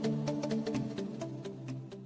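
Background music: sustained notes over a steady light percussion tick about four times a second, fading out.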